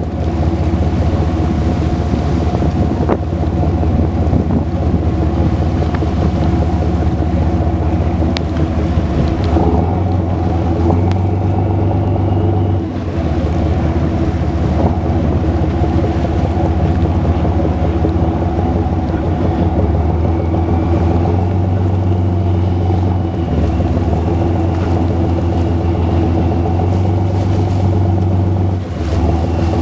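Engine of an aluminium gillnet fishing boat running steadily underway, a loud low drone that dips briefly a couple of times.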